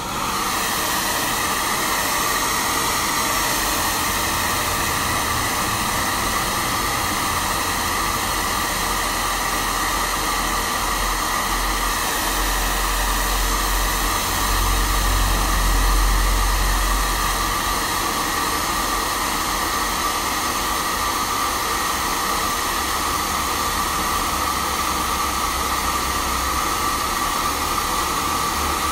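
Handheld hair dryer switched on at the start and running steadily, a continuous rushing blow with a whine from its fan, aimed at a twisted lock of damp hair. A low rumble swells briefly around the middle.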